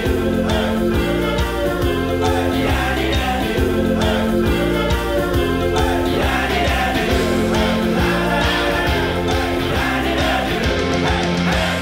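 Background music: a song with a singing voice, playing steadily at an even loudness.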